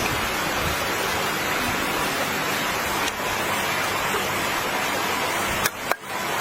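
Steady rushing noise of water, even and unbroken, cut short twice by brief dropouts near the end.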